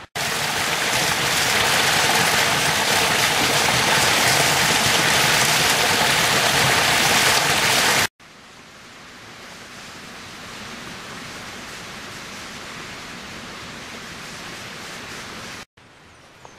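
Steady rush of water from a small waterfall in a rocky mountain stream. It is loud for about eight seconds, then cuts abruptly to a much quieter, softer stream sound, which cuts off again near the end.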